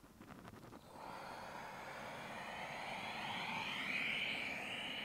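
A long, breathy exhale lasting about four seconds, swelling and then fading, with a little clothing rustle at the start as the body folds forward into child's pose.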